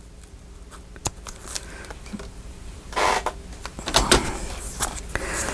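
Paper being cut and handled: a few sharp clicks, and a short rustle of paper about three seconds in.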